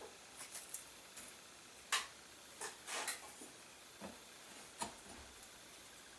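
Scattered light clicks and taps of a thin steel tool against a cracked wooden rifle stock, as it pries the split open to work glue into it; the loudest tap comes about two seconds in.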